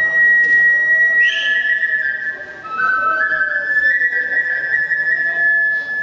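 Kagura transverse bamboo flute playing long held high notes, the melody stepping down through a few notes in the middle and climbing back up.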